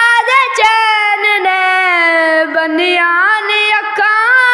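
A high solo voice singing a Punjabi manqabat in praise of Imam Hussain, holding one long drawn-out line with the pitch bending and gliding between notes.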